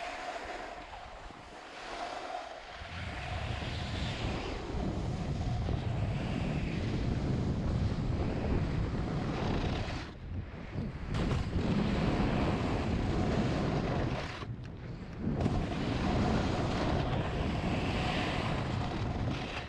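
Wind buffeting the microphone of a camera carried at speed down a snow slope, mixed with the hiss of sliding over groomed snow. The low rumble of the wind sets in about three seconds in, and the noise drops out briefly twice, around ten and fifteen seconds in.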